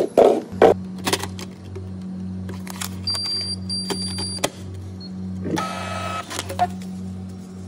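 Self-order kiosk's built-in receipt printer running as the kiosk is switched on, with a steady pulsing motor hum and a long strip of receipt paper feeding out. Two short high electronic beeps sound about three seconds in, and there is a brief rasp of paper about six seconds in.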